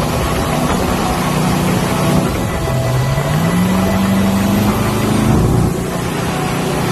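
Motorboat running at speed, its engine note under the rush of water and wind; a little under halfway through the engine's pitch rises and then holds.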